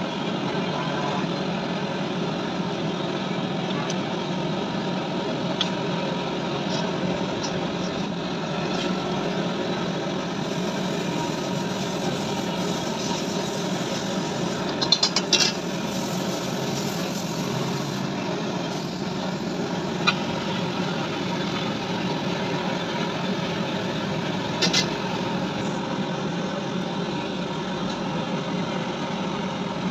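Steady mechanical drone, with a few short metallic clicks as lead-acid battery plate groups are set into a steel jig.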